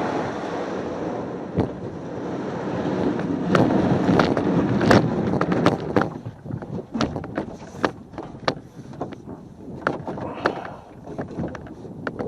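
Wind rushing over the microphone, with a string of sharp knocks and clatters on a canoe that come thick and fast from about three seconds in.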